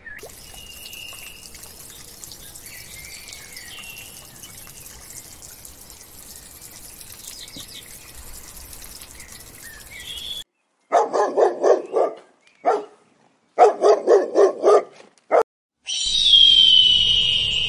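A few short songbird chirps over a steady hiss of trickling water. Then two loud runs of fast, rhythmic animal calls with silent breaks between them, and near the end a high whistle falling in pitch.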